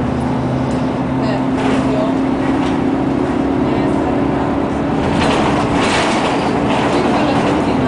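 Inside a moving city bus: the engine and drivetrain run with a steady hum and a constant tone, over road noise.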